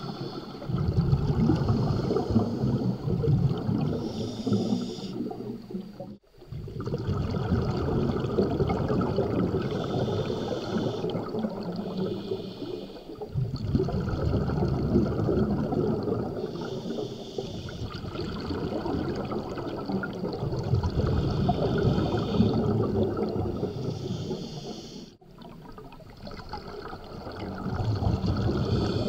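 Scuba diver breathing through a regulator underwater: hissing inhalations alternate with bubbling, rumbling exhalations every few seconds, with two brief pauses.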